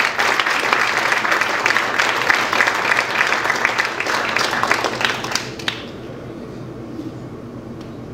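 Audience applauding, the clapping stopping abruptly a little over halfway through and leaving only quiet room sound.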